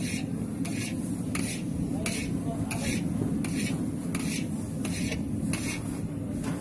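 Hands rubbing crumbly, barely moistened puri dough (wheat flour and water) against a large aluminium tray: a dry, scraping stroke repeated about every two-thirds of a second. A steady low rumble runs underneath.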